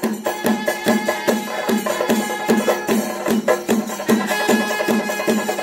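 Traditional temple procession percussion: drums struck in a quick, even rhythm, with steady ringing tones held over the beat.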